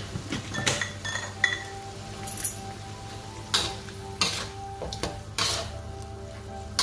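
Metal spatula scraping and clinking against an aluminium wok while bok choy is stir-fried, in about half a dozen irregular strokes.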